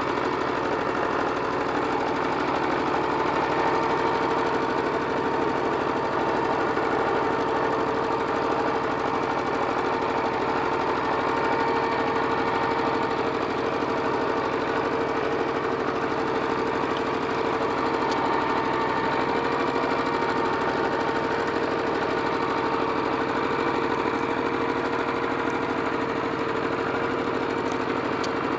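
Minitractor engine running steadily under load as it tows a homemade drag across the field, its pitch holding constant with no change in speed.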